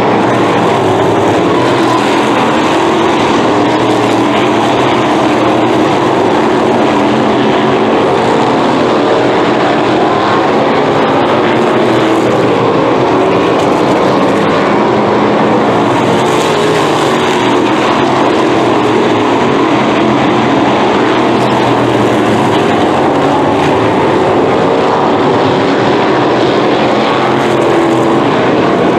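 Several winged sprint cars' V8 engines running at speed together, a loud, continuous drone whose pitches waver and overlap as the cars circle and pass.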